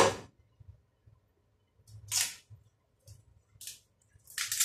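Three short rustling scrapes, about two seconds apart, from bananas and their peels being handled and peeled on a kitchen table.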